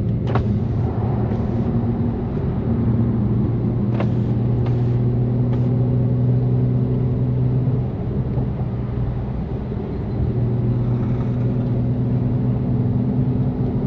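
BMW F80 M3's twin-turbo straight-six cruising at steady low revs through a catless exhaust with open valves, a steady drone that eases off for a couple of seconds about eight seconds in, then picks back up. A few short, sharp knocks sound near the start and about four seconds in.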